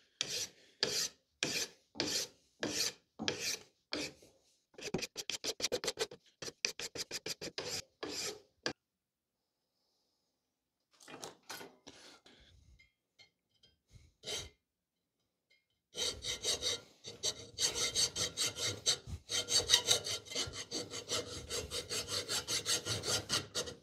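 Hand file stroking across a cast mild-steel pipe cap held in a vise, at first in slow, even strokes and then in quicker ones. After a short quiet spell, a hacksaw cuts into the cap with rapid back-and-forth strokes through the last third.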